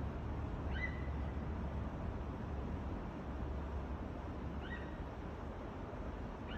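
A bird calls twice, two short high notes about four seconds apart, over a steady low rumble.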